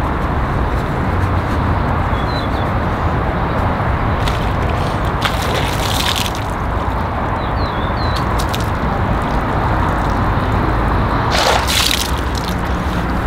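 Water running, sloshing and dripping during a car wash, a steady wet noise with a few sharp clicks and a louder splash-like burst near the end.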